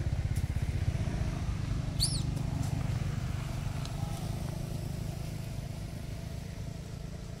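A small motorcycle engine running nearby, a steady low pulsing rumble that slowly fades. A single short high chirp sounds about two seconds in.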